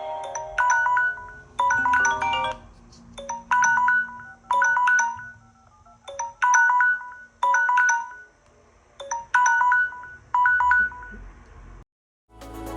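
Smartphone ringtone: short, bright electronic melodic phrases repeating about once a second with brief gaps, which stop shortly before the end. A different, denser tone starts right at the end.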